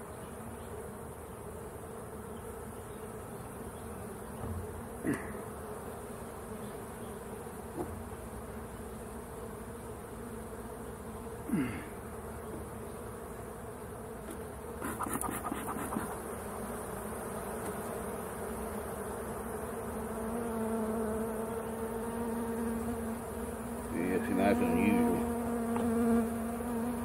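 Honeybees buzzing steadily around an open hive, the hum swelling louder and closer in the last several seconds, with a few light knocks from the wooden hive frames being handled. The beekeeper suspects the hive is being robbed.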